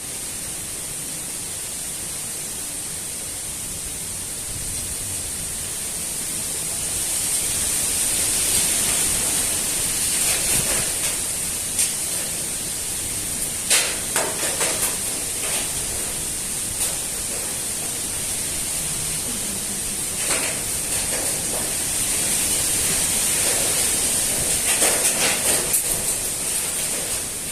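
Strong gusty wind: a steady rushing noise that swells in gusts, with scattered short crackles and knocks during the stronger gusts.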